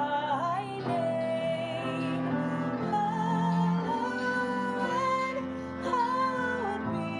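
Woman singing a hymn in long held notes with vibrato, accompanied by cello and acoustic guitar.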